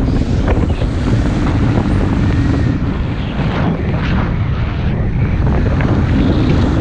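Wind buffeting the camera microphone in flight on a tandem paraglider: a loud, steady rushing noise, as the glider swings through tight spinning turns.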